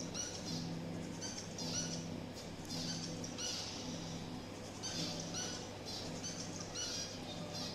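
Zebra finches calling: many short, nasal beeping calls, scattered and overlapping. Beneath them a low tone pulses on and off about once a second, with a faint steady hum.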